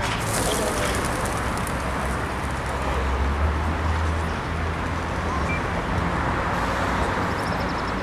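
Outdoor city ambience: a steady wash of noise over a low traffic rumble that swells for a second or so about three seconds in.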